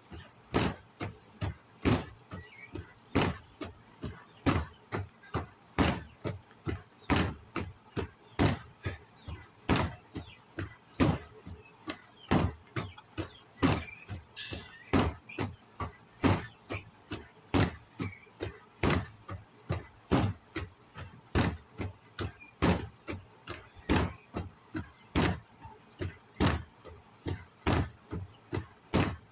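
A stick beating a round, dark pan, with sharp knocks that keep up at about two or three a second.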